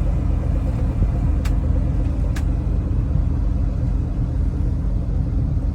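Regal 2665 cruiser's engine running steadily underway, a low rumble with a steady hum. Two short, sharp ticks come about a second apart, midway through.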